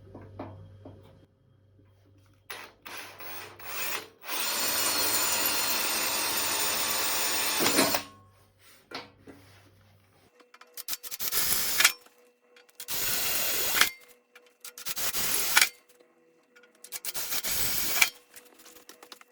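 Power drill drilling pilot holes, not yet the final size: one run of about four seconds, then four shorter bursts of about a second each.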